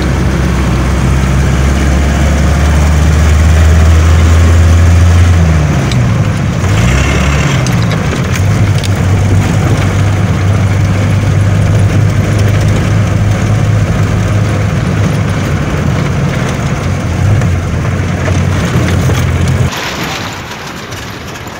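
Vehicle engine running, heard from inside the cabin while driving. About seven seconds in, the engine note drops and climbs again, as with a gear change. Near the end it cuts abruptly to a quieter, different sound.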